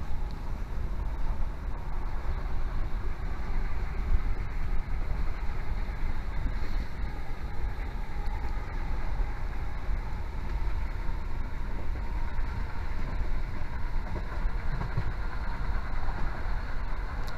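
Steady rumble of a diesel passenger train running along the line, heard from inside the carriage: wheels on the rails and the running noise of the train.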